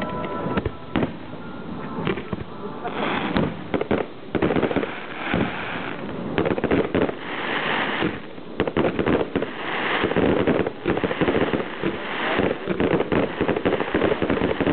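Firework display: aerial shells bursting one after another in a rapid series of bangs, with dense crackling from glittering crackle-star bursts that swells in waves from about three seconds in.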